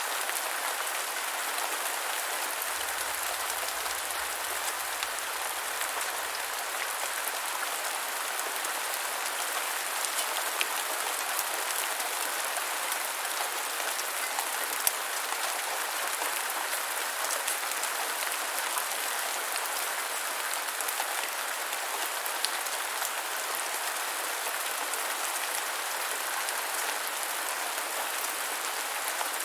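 Steady medium rain falling on a surface: an even hiss of many small drops, with an occasional louder drop tick.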